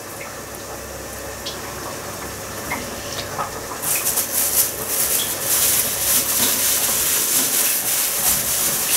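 Thin plastic bag crinkling and rustling as it is handled around freshly rolled meatballs. The crinkling starts suddenly about four seconds in and goes on steadily; before that there is only faint kitchen background with a few soft clicks.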